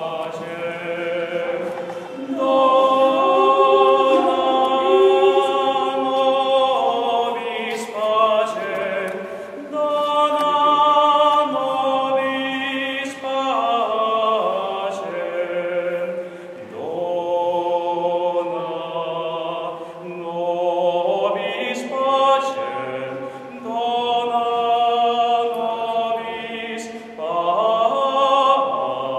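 A choir singing a slow piece, held notes in several voices, in phrases separated by brief breathing pauses.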